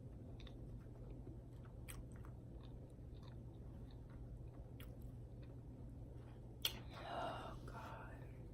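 Faint close-up chewing of soft chocolate cake, with small wet mouth clicks. Near the end comes a sharp click, then a brief louder sound lasting about a second.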